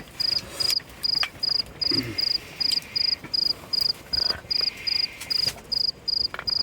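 An insect chirping steadily in a high, even rhythm, about two and a half short chirps a second.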